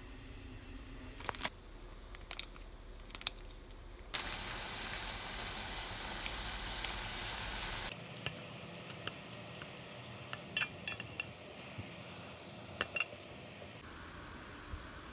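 Instant noodles cooking in a metal pot: a few sharp clicks, then about four seconds of steady sizzling, then a scatter of taps and clicks from chopsticks against the pot.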